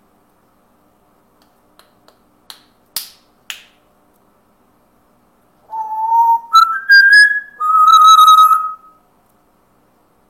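A few faint sharp clicks, then four whistled notes that climb in pitch and drop back for a long final note.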